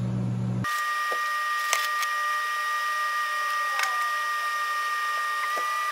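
Sped-up time-lapse audio of a workshop: the room's low hum is raised to a steady high two-tone whine over a noisy hiss, with a few sharp clicks. It starts abruptly at a cut about half a second in, after the end of the normal-speed hum.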